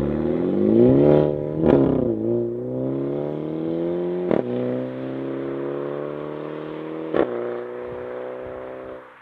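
2019 Mini John Cooper Works with the JCW Pro exhaust accelerating hard away, its turbocharged four-cylinder revving up through the gears with a sharp exhaust crack at each of three upshifts. The note grows fainter as the car pulls away.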